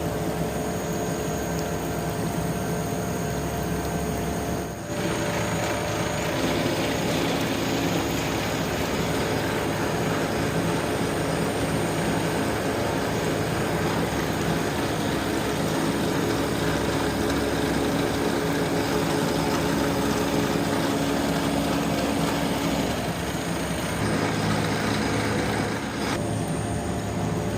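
Steady factory machinery running, a continuous mechanical noise with a constant hum. Its character changes abruptly about five seconds in and again near the end.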